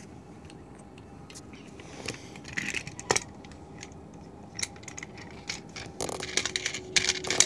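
Light clicks and clatter of toys being handled by hand: a toy level-crossing barrier and die-cast toy cars on a wooden train track. The clicks are scattered at first, with one sharper click about three seconds in, and grow busier in the last second and a half.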